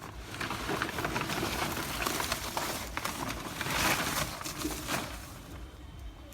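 Crackling, rustling mesh as a live snakehead fish is pulled out of it, with a run of small clicks and scrapes that peaks about four seconds in.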